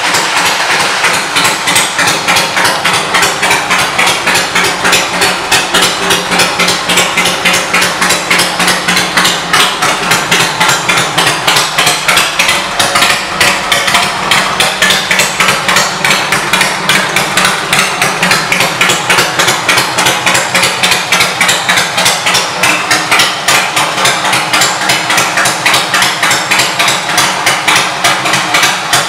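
1998 Harley-Davidson Fat Boy's Evolution V-twin idling through fishtail exhaust pipes, a loud, steady run of rapid exhaust pulses.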